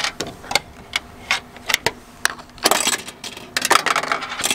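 A coin being pushed into a parking-ticket machine's coin slot and rejected, clicking and clinking through the coin mechanism, with two short rattles. The coin is refused because it is not a euro.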